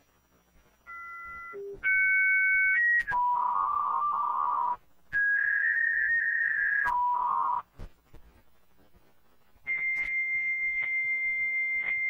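Dial-up modem handshake tones: after a second of quiet come a few short steady beeps, then warbling two-tone data signals around 1 kHz and just under 2 kHz that switch back and forth. From about two-thirds of the way through, a steady high answer tone sounds with a faint click about every half second, and near the end the warbling around 1 kHz joins it.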